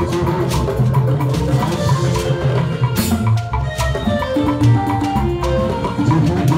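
Live band music with hand drums playing a busy, even rhythm of sharp strokes under held melodic notes.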